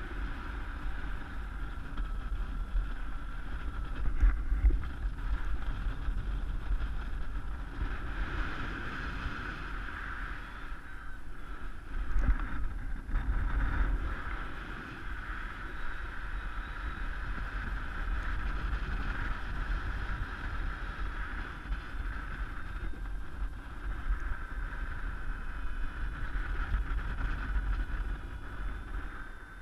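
Airflow rushing over the microphone of a helmet camera in paraglider flight, a steady low rumble that swells in gusts about four seconds and twelve seconds in, with a steady whistle above it.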